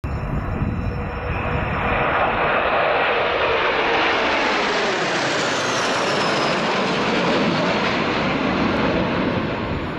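Formation of eight Dassault/Dornier Alpha Jet trainers flying past, their twin turbofan engines making a continuous rushing jet noise whose pitch falls midway as the formation goes by.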